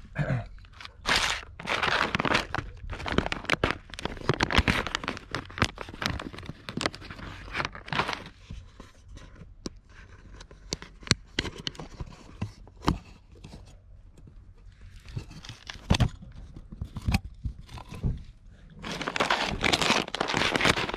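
A plastic food packet crinkling and rustling as it is handled and torn open, in irregular runs of sharp crackles.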